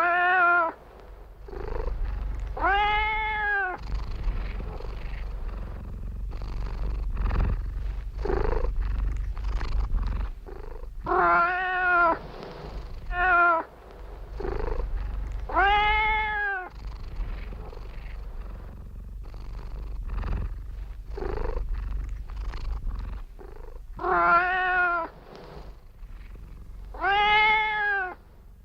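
Domestic cat purring steadily, with about seven meows spaced a few seconds apart, each rising then falling in pitch and lasting about a second.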